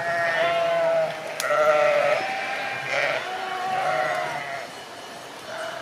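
A large flock of sheep bleating, many calls overlapping one another, each bleat lasting around a second.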